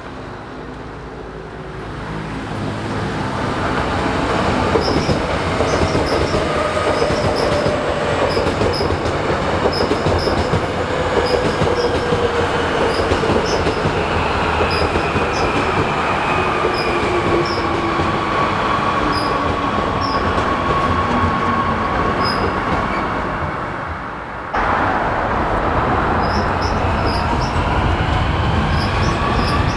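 Seoul Subway Line 2 electric train running through the station with wheel and rail noise, its motor whine falling steadily in pitch as it slows. About 24 seconds in the sound cuts abruptly to a train whose whine rises in pitch as it speeds up.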